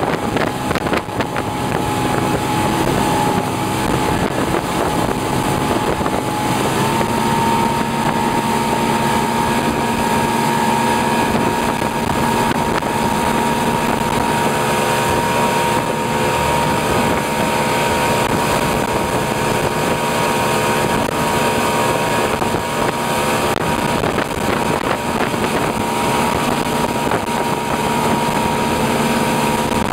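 Motorboat engine running steadily at speed while towing, over the rush of its churning wake and wind buffeting the microphone. The engine's pitch steps up slightly about seven seconds in and then holds.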